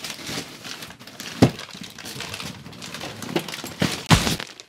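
The plastic wrapping of a large pack of rock wool insulation rustles and crinkles as the pack is lifted down and carried, with heavy thumps about one and a half seconds in and again near the end.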